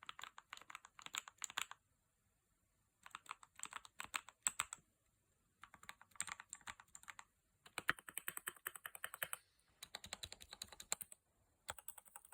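Typing on a Royal Kludge RK61 mechanical keyboard with hand-lubed Outemu Silver linear switches and pudding keycaps: quick runs of keystrokes in about six bursts separated by short pauses.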